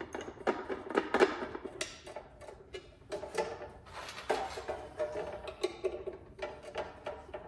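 Metal parts and tools clinking and knocking as the abrasive chop saw is assembled, a string of irregular clicks and knocks, some with a short ringing tone.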